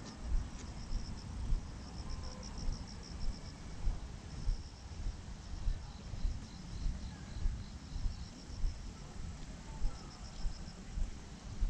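Insects chirping in rapid high-pitched pulsed trills that come and go, with a second, lower pulsed series joining midway. Under them, low thumps of the walker's footsteps about once a second.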